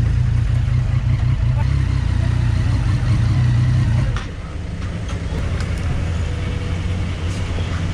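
Triumph Street Triple 675's inline-three engine with an Arrow exhaust running at idle, a loud steady low rumble that drops in level about four seconds in.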